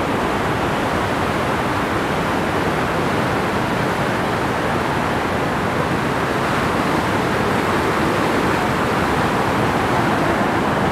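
Fast river water pouring over a concrete weir and churning into white water below: a loud, steady rush.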